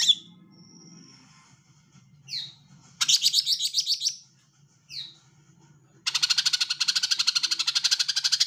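Female green leafbird (cucak ijo) calling. Short, sharp down-slurred notes come at the start, at about two seconds in and at about five seconds in. Between them are fast chattering trills: one about a second long at three seconds in, and a longer one from about six seconds on.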